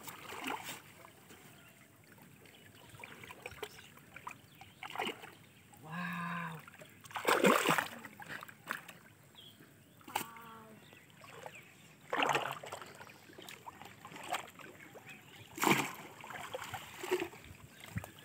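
Shallow pond water splashing and sloshing in separate bursts as hands and a woven bamboo fish trap move in it. The loudest splash comes about halfway through.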